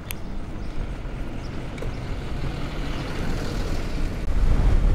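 Wind noise on the microphone and tyre hiss on a wet road from an electric moped riding at about 40 km/h, its hub motor nearly silent. The low rumble grows louder about four seconds in.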